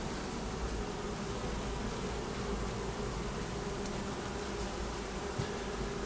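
A colony of honey bees buzzing around an opened hive, a steady drone with a low hum.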